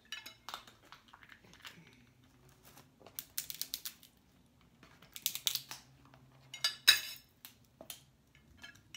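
Tabletop handling of takeout seafood: crackling and rustling of paperboard takeout boxes and crab shells in a few short bursts, the sharpest a snap about seven seconds in.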